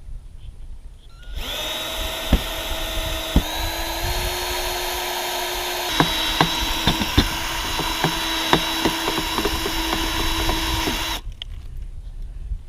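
Power drill running at a steady speed for about ten seconds, its motor whine stepping slightly in pitch a couple of times, with scattered sharp clicks; it starts about a second in and stops near the end.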